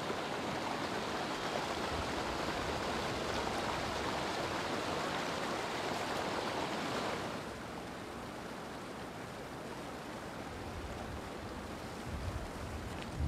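Steady rushing of flowing stream water. It is louder for the first seven seconds or so, then drops to a quieter, even rush.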